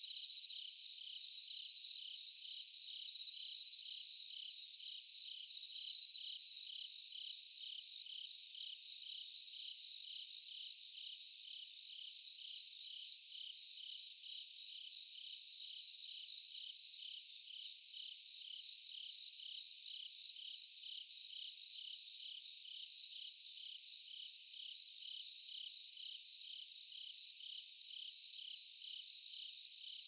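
Chorus of autumn insects chirping, a steady pulsing call about three times a second under a higher continuous ringing, with a short run of high ticks repeating every few seconds.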